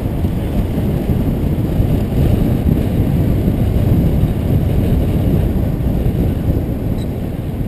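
Steady wind rush and buffeting on the microphone of a handlebar-mounted GoPro on a road bike moving at speed. It is a dense low rumble that does not let up.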